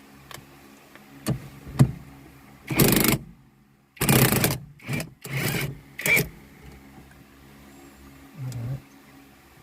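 Hand work on car parts during a horn repair: a few sharp clicks and three short scraping or rustling bursts, over a low steady hum.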